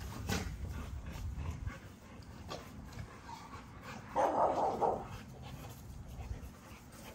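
Young XL bully dogs playing together on grass, with one loud bark about four seconds in.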